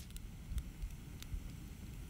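Wood campfire burning: a low, uneven rumble underneath, with a few faint, sparse crackles and pops from the burning logs.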